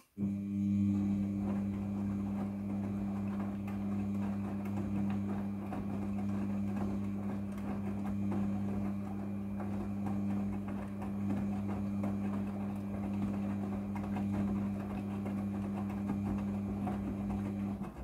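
Midea front-loading washing machine turning its drum in a wash tumble: a steady motor hum over the swish of wet laundry rolling in the drum. It starts abruptly and cuts off abruptly at the end.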